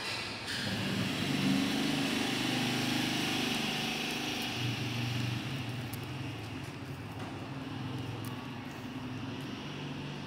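A motor vehicle running: an engine hum with road noise that starts suddenly, is loudest about a second and a half in, then slowly fades.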